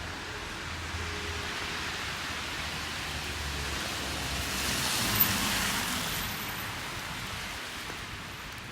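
Hiss of a vehicle's tyres passing on a street, swelling to a peak about five seconds in and fading away.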